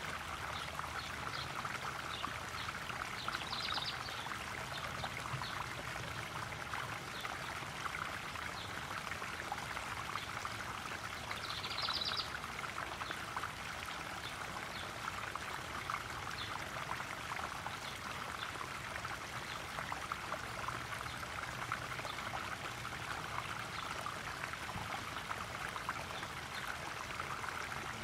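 Small garden koi-pond waterfall pouring and trickling steadily into the pond. Two brief high chirps are heard, about 4 seconds and 12 seconds in.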